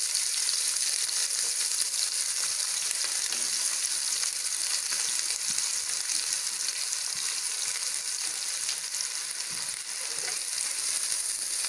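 Sliced onions sizzling in hot ghee and sunflower oil in a nonstick pot as they start to sauté, stirred with a wooden spoon; a steady high hiss.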